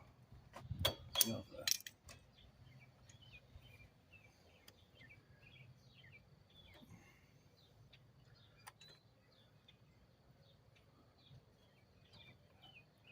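A few sharp metallic clinks and a short clatter in the first two seconds, as of metal brake parts or tools being handled, then faint bird chirps repeating over a low steady hum.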